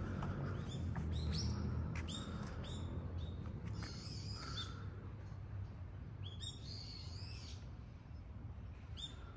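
Small birds chirping: a string of short, arched, high chirps in loose clusters, thinning out for a moment past the middle, over a steady low rumble.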